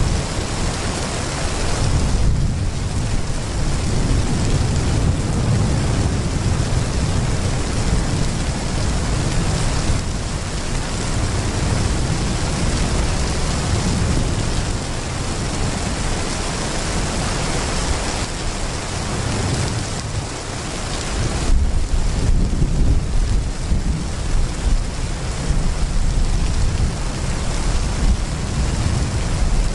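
Heavy rain pouring steadily, with a low rumble of thunder underneath that swells louder about two-thirds of the way through.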